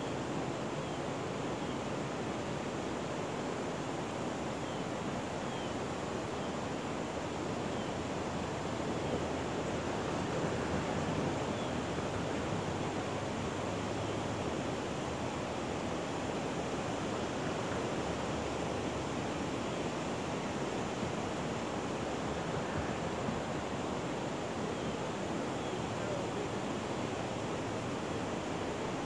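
Steady rushing of water pouring over a low spillway weir.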